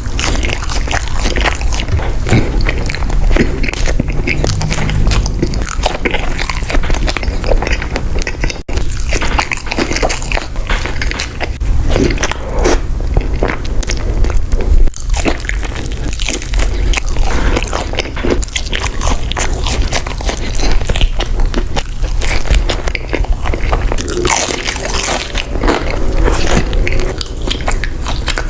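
Close-miked eating: big bites into fast food and steady chewing, a rapid run of short crunches and mouth sounds.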